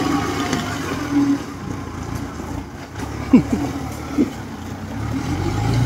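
Engine of a tracked crawler rice carrier running as it drives off loaded with rice sacks. The engine note drops away in the middle and another grows louder near the end, with two brief falling chirps about halfway through.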